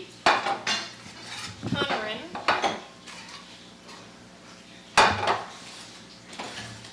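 Dinner plates being set down one by one on a table, each a sharp clattering knock, the loudest about five seconds in.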